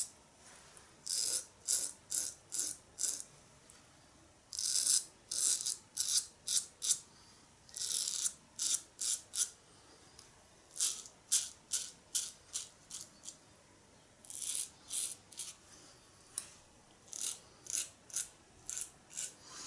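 Merkur Futur double-edge safety razor with a Supermax blade scraping stubble through shaving cream against the grain: runs of short, crisp strokes, several in quick succession, with pauses between runs.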